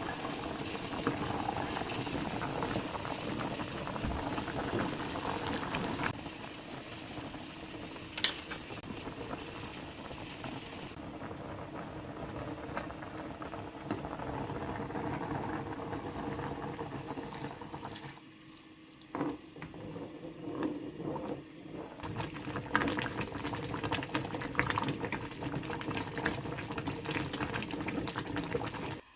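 Food cooking in a pan on the stove, a steady bubbling hiss broken by a few sharp clicks of a utensil, one loud one about eight seconds in. The sound shifts abruptly several times as the scene cuts.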